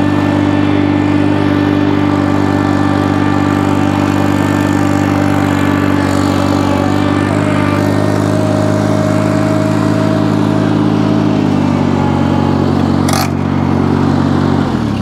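Ventrac 4500 compact tractor engine running steadily as the machine drives up. Its pitch drops about twelve seconds in as it slows, and a single sharp click comes a second later.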